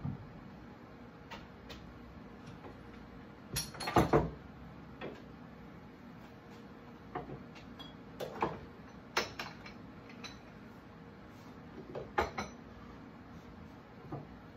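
Household items being moved and set down on a kitchen countertop during cleaning: scattered knocks and clinks, the loudest clatter about four seconds in and again around twelve seconds, over a faint steady hum.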